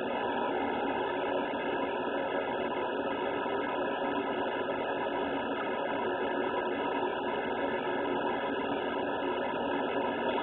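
Steady fan noise from a running household appliance blowing air through its slatted vent grille.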